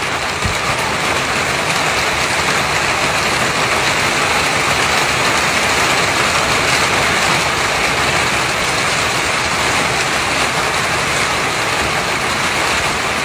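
Rain falling on a clear corrugated plastic canopy roof: a loud, steady, dense hiss.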